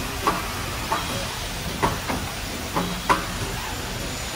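Automatic aluminium window four-corner assembly machine and its belt conveyor running: a steady mechanical hiss broken by five sharp clacks at uneven intervals, the loudest near the end.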